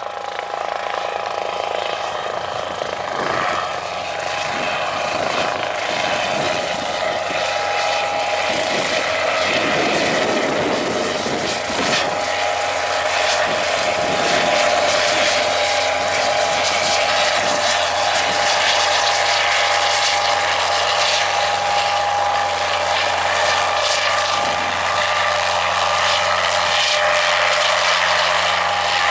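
Guimbal Cabri G2 helicopter, its four-cylinder Lycoming piston engine and rotors running as it flies in and hovers to land. It gets louder over the first few seconds and carries a steady whine over the rotor noise.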